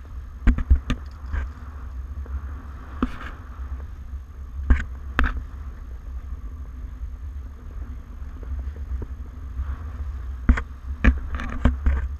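Wind rumbling low and steady on an action camera's microphone on a sailing catamaran, with water rushing along the hull and scattered sharp knocks and clicks, a few in the first second and a cluster near the end.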